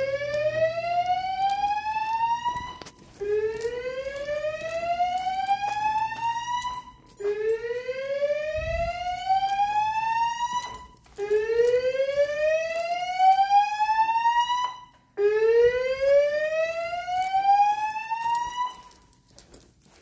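Fire alarm evacuation speakers on a Notifier voice-evacuation system sounding the slow whoop tone. Each whoop rises steadily in pitch for about three and a half seconds, pauses briefly, then repeats: five sweeps in all. The tone stops shortly before the end, as the system moves on to its spoken evacuation message.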